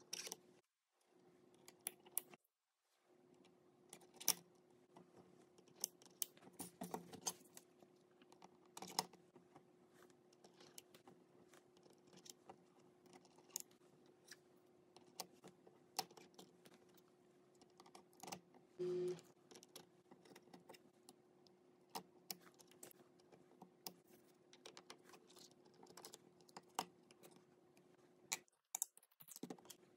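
Faint scattered small clicks and taps of hard objects, irregular and spaced out, over a steady low hum. A short low tone sounds a little past the middle.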